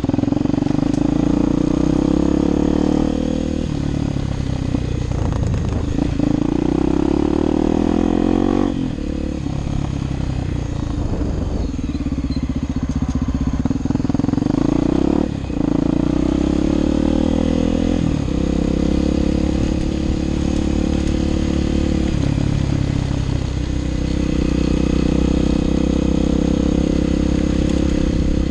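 Motorcycle engine running while riding, its pitch climbing through each gear and dropping sharply at several gear changes.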